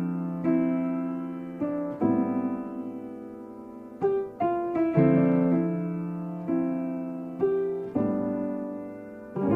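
Background piano music: slow, soft chords struck one after another, each ringing and fading before the next.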